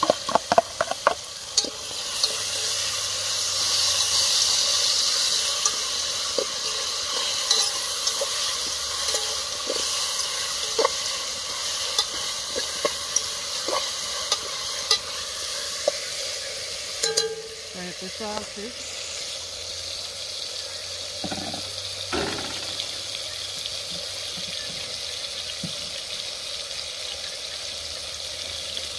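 Saltfish, onions and peppers frying in a metal pot over an open wood fire: a steady sizzle, with a spoon clicking and scraping against the pot as the mix is stirred. After about seventeen seconds the stirring stops and the sizzle goes on alone, a little quieter.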